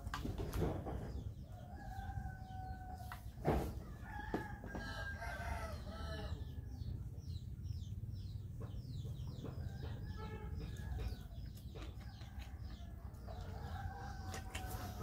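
Roosters crowing in the background, about four long calls, over the sounds of someone eating by hand from a steel plate. There is a sharp click near the start and another about three and a half seconds in.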